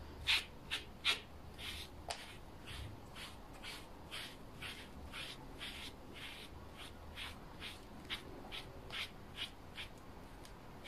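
A pet grooming brush raking through a tabby cat's fur in quick repeated strokes, about two to three a second, the loudest near the start. Under it the cat purrs faintly while being held and groomed.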